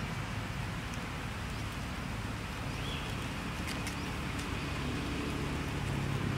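Steady outdoor background noise with a low, engine-like hum, a few faint clicks, and one short high chirp about three seconds in.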